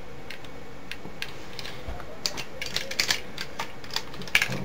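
Irregular light clicks and small knocks of a Transformers Masterpiece Megatron toy figure's parts as it is handled and folded during transformation.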